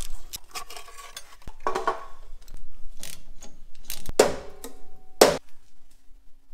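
Hand tools clinking and knocking against car metalwork, then two loud ringing metal strikes about a second apart near the end.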